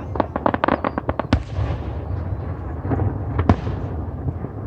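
Aerial fireworks: a rapid string of crackling pops in the first second, then loud booms just after a second in and again at about three and a half seconds, over a continuous low rumble of shells.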